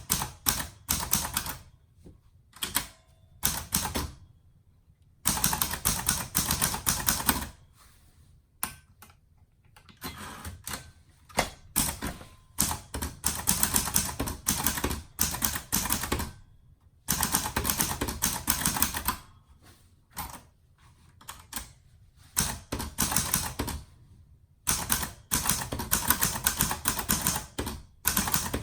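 Typing on a 1955 Empire Aristocrat portable typewriter: runs of rapid keystrokes, each from about one to four seconds long, broken by short pauses.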